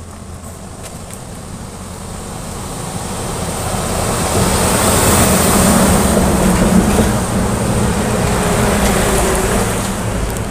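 A vehicle passing on the road, its engine and tyre noise growing louder to a peak about halfway through and then fading away.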